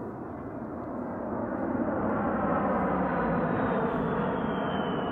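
A-10 Thunderbolt II's twin turbofan engines passing low overhead: a broad jet roar that builds over the first two seconds, with a high whine that slowly falls in pitch in the second half.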